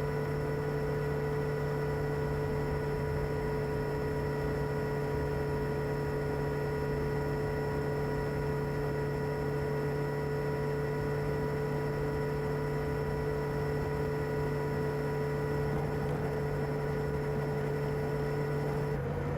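Kawasaki ZR-7S air-cooled inline-four engine with its stock exhaust, running at a steady speed with an even, unchanging hum. Its pitch shifts slightly at the very end.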